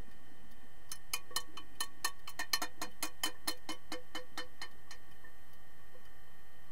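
Rapid train of sharp clicks heard underwater, about five a second for close to four seconds, loudest in the middle and then fading out.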